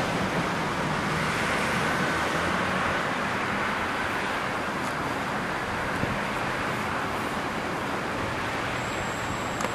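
Passenger multiple-unit train running away along the track: a steady rumble that slowly fades.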